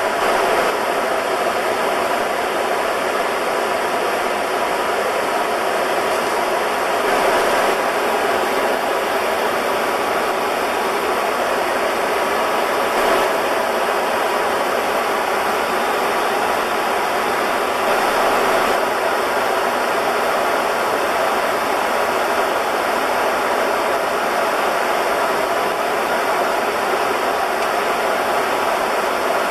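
Steady rushing cabin noise on the flight deck of an Airbus A300-600R in cruise at flight level 330: the even roar of air streaming past the cockpit together with the ventilation, unchanging throughout.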